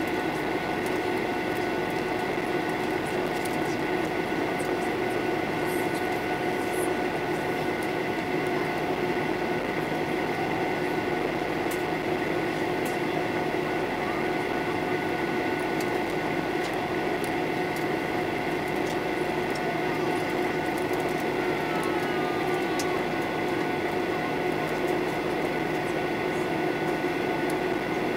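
Boeing 737-800 cabin noise: the CFM56 turbofan engines and air system give a steady drone with several steady whining tones, heard from inside the passenger cabin. There are a few faint ticks, and no rise or fall in level.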